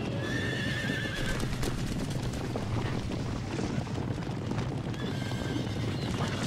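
A band of mustangs on the move, hooves drumming, with a whinny about a second in and another near the end.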